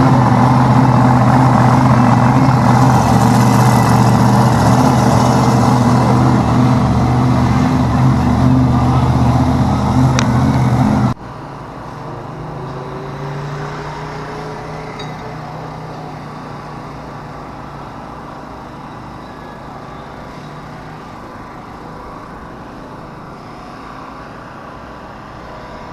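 A loud, steady motor drone with a strong low hum, cutting off abruptly about eleven seconds in. It gives way to a much quieter outdoor background with a faint distant engine.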